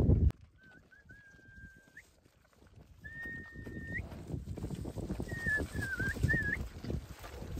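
Three short high whistles. The first two are held steady and end in a quick upward flick; the third wavers up and down. Low rustling noise runs underneath.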